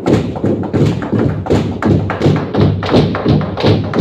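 Wancho big log drum (kham), a hollowed tree trunk, beaten by several men with wooden beaters. The strikes come as a steady run of deep, ringing thuds, about two to three a second, with strokes sometimes overlapping.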